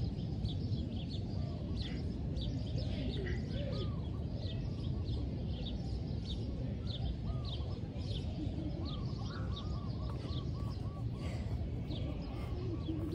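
Birds chirping repeatedly with short, quick calls over a steady low rumble.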